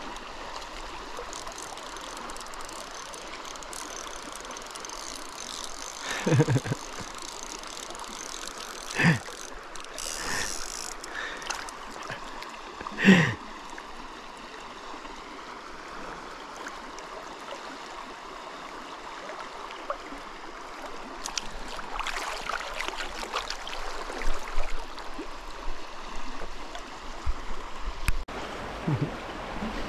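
River water running steadily over rocks, a continuous rushing flow. Several short, louder thumps break in about six, nine and thirteen seconds in, and there is a busier patch of knocks in the last third.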